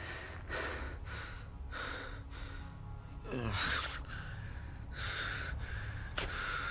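A man panting and gasping in rapid, ragged breaths, with a stronger gasp about halfway through, over a low steady rumble.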